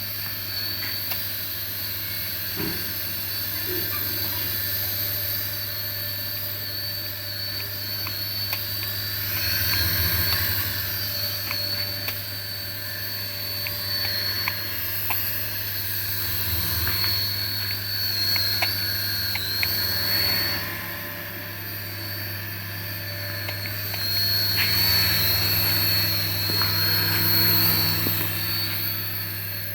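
Small electric motor of a remote-control toy running with a steady high whine, its loudness swelling and easing several times.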